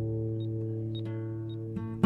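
Background music: an acoustic guitar chord ringing out and slowly fading, with a light tick about twice a second.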